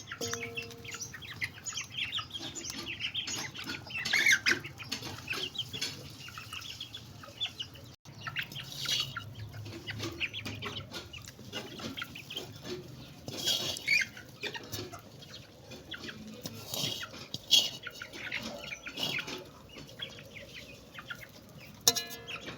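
Chickens clucking and squawking, with scratchy wing and rustling noise.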